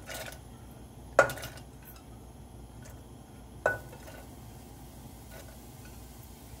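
Soaked black-eyed peas tipped by hand from a bowl into an aluminium pressure cooker holding water: a few sharp clinks with a short ring, the loudest about a second in, and a faint one near the end.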